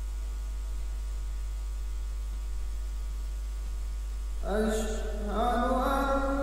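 Music recording with a steady low mains hum under faint held tones. About four and a half seconds in, a loud sustained pitched note with many overtones comes in, sliding slightly in pitch.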